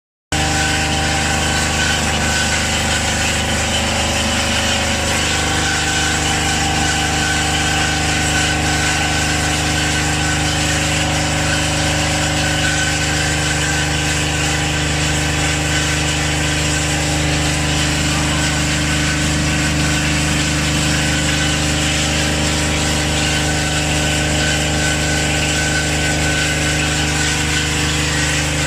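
Worm and worm-wheel milling machine running, a steady mechanical hum with several constant tones over an even hiss.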